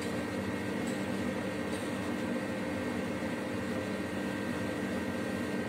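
Steady background hum and hiss of room noise, like a running fan or air conditioner, with a few steady tones through it and no sharp events.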